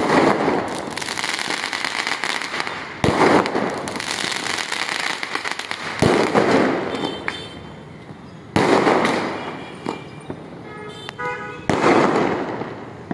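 Fireworks and firecrackers going off: five sharp bangs, about one every three seconds, each followed by crackling that fades away.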